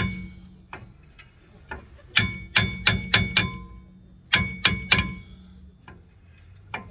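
Hammer blows on a stuck rear brake rotor of a Ford F-250 to knock it loose from the hub. The rotor rings with each strike, in two quick volleys of about four or five blows, about two seconds in and again at about four and a half seconds, after a few lighter single taps.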